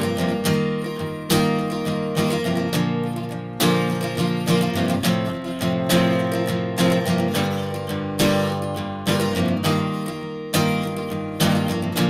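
Background music: strummed acoustic guitar with a steady rhythm.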